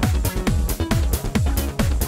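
Electronic dance music with a steady kick-drum beat, about two kicks a second, and sharp higher percussion hits between them.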